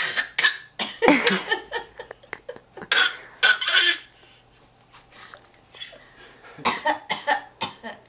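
A baby's fake cough, done for attention: short, breathy coughs in clusters, a few in the first seconds, a pause, then a quick run of little coughs near the end.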